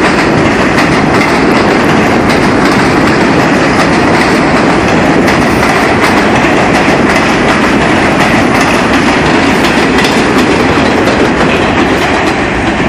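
R46 New York City subway train passing through the station, its wheels clattering over the rail joints. The sound is loud and steady throughout.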